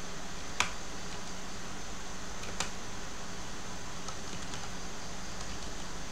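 Computer keyboard keystrokes, a few scattered clicks with a sharper one about half a second in and another about two and a half seconds in, over a steady hiss.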